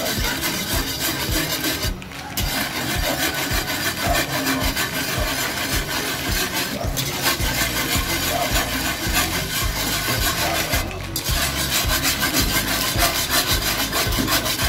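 Wire balloon whisk scraping and swishing rapidly around an aluminium wok of thick sauce, in quick continuous strokes. It pauses briefly about two, seven and eleven seconds in.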